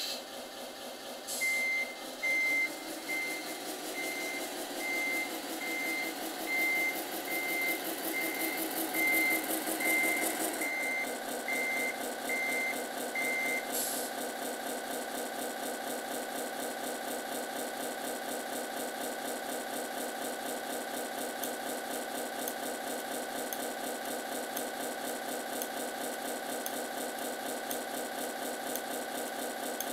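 Servonaut sound module in a Tamiya Scania RC truck playing a Scania V8 engine sound through its small speaker while the truck reverses: the engine revs and a reversing beeper sounds about once every 0.8 s. About ten seconds in the engine drops back to a steady idle, the beeping stops a few seconds later, and short hisses sound near the start and as the beeping ends.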